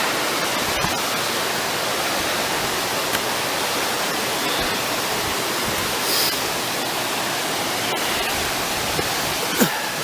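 Waterfall rushing steadily and loudly, a dense hiss of falling water, with a small knock near the end.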